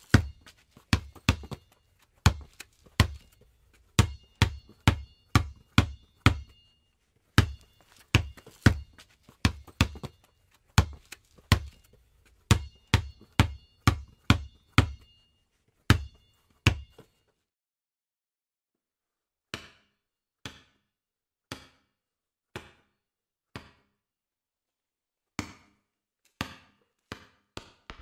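Basketball dribbled on concrete: a steady run of sharp bounces, about two a second, each with a brief high ring. They stop after about seventeen seconds, then resume softer and slower, about one a second.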